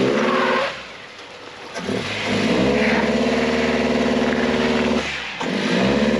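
Lifted Honda CR-V's engine revving under load as it crawls over rocks, in bursts: the revs drop away about a second in, climb and hold steady for about three seconds, ease off, then rise again near the end.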